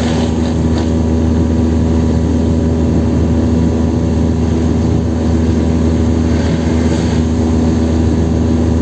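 Chevrolet Kadett 1.8's four-cylinder engine running at steady revs at highway speed, heard from inside the cabin with road noise.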